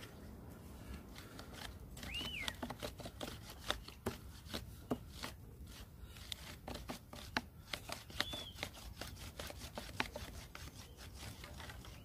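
Bow drill being worked by hand: the bow sawing back and forth spins a wooden spindle against a log, giving faint, irregular wooden clicks, knocks and rubbing. The spindle is only just starting to turn, still sticking.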